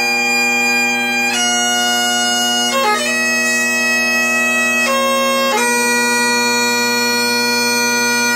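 Great Highland bagpipe playing a slow piobaireachd: long held chanter notes over the steady drones, with quick grace notes at each change of note, about four changes in all.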